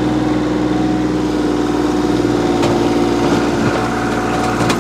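Kioti compact tractor's diesel engine running steadily under load while it drives a three-point rotary tiller through loose soil, with a couple of faint ticks in the second half.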